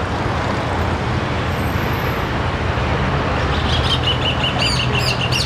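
Steady noise of a Beechjet 400A business jet's twin turbofan engines as it climbs away after takeoff. From about three and a half seconds in, a bird calls in a fast series of high chirps over it.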